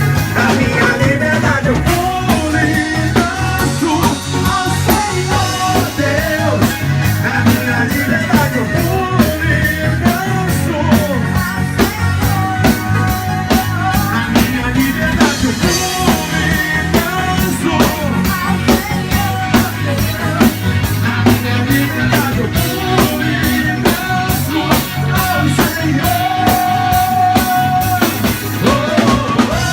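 Gospel rock band playing an upbeat song: drum kit keeping a steady beat under electric guitar and bass, with a wavering lead melody line on top.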